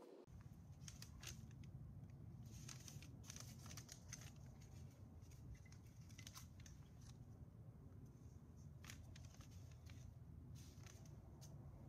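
Faint rustling and crinkling of brown craft paper being handled and rolled into a tube, with scattered light clicks and taps over a steady low hum.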